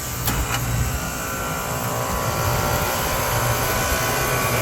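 Refrigeration condensing unit running: a steady fan rush over a low hum, with two brief ticks about half a second in. Little heat is coming off it, which the technician puts down to a low refrigerant charge.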